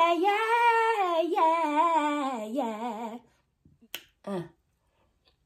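A woman singing a wavering, wordless vocal run that stops about three seconds in. A sharp click and a short low vocal sound follow.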